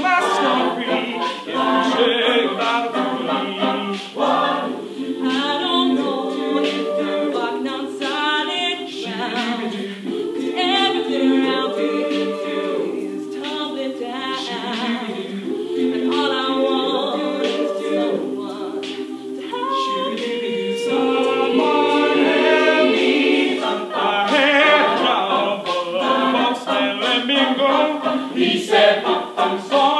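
Mixed-voice a cappella choir singing a pop arrangement: sustained close-harmony chords under a moving lead voice, with sharp vocal-percussion ticks keeping a beat.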